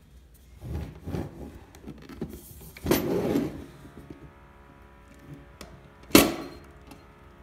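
Clear plastic clamshell packaging of a hand mixer handled on a wooden table: rustling and irregular knocks, loudest about three seconds in, then one sharp knock against the table about six seconds in.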